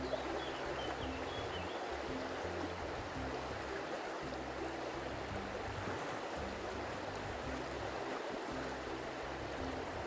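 Steady rushing water, like a stream, with a few faint high chirps about a second in.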